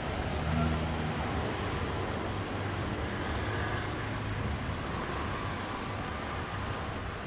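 Road traffic: a steady low rumble of passing vehicles' engines and tyres, with one engine humming a little louder about half a second in.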